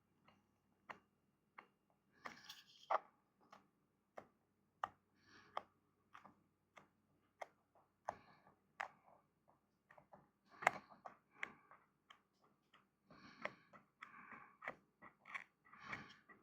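Faint handling noises: scattered small clicks and short rustles at uneven intervals, from hands pressing a new foam surround onto the glued edge of a subwoofer cone.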